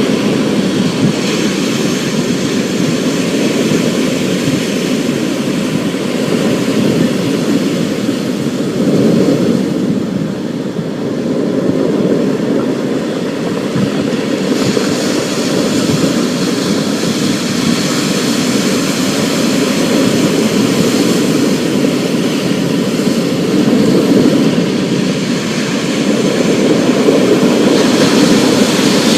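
Thunderstorm ambience: a steady, dense rumble of rain and storm noise with a hiss above it that swells and eases, and no sharp thunderclaps.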